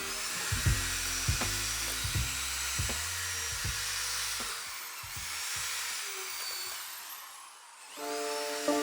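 Wet vacuum cleaner motor running with a steady high hiss and whine that fades out near the end, over background music with a beat; piano notes come in at the very end.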